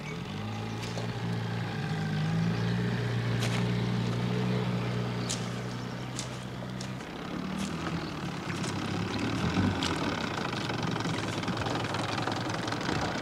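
Small Johnson two-stroke outboard motor running steadily, pushing a rowboat across calm water. About seven seconds in, its steady tone gives way to a rougher, noisier sound.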